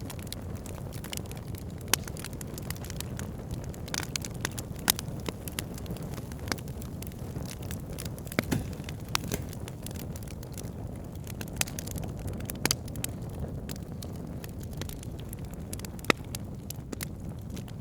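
Fire crackling in a fireplace: a steady low rumble of flames with irregular sharp snaps and pops, the loudest about 2 s, 5 s and 16 s in.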